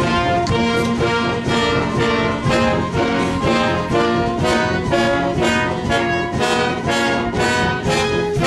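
Live church band and orchestra with a brass section playing an upbeat old hymn tune with a steady beat.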